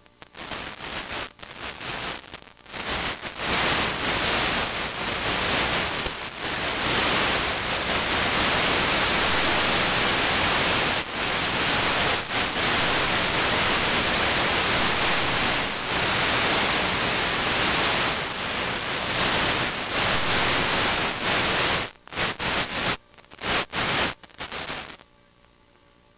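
Loud, even hiss of static from an analog 5.8 GHz FPV video receiver's audio channel, the sound of a weak or lost radio signal. It flickers in choppily at first, holds steady, then breaks up in on-off dropouts near the end and cuts off.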